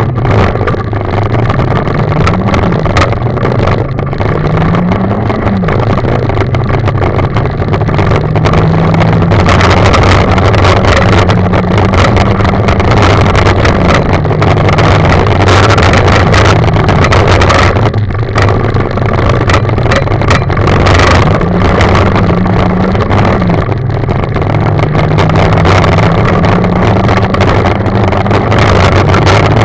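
Rally car's engine at full throttle heard from inside the cabin, pitch rising and dropping back again and again as it accelerates from the start and shifts up through the gears. Gravel and tyre noise throughout, with frequent short sharp hits of stones against the car.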